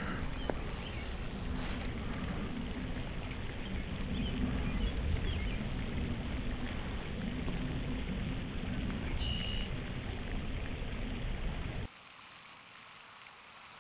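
Wind buffeting the microphone, a steady rumble with a few faint bird chirps over it. Near the end it cuts to a much quieter outdoor background with two short, falling bird chirps.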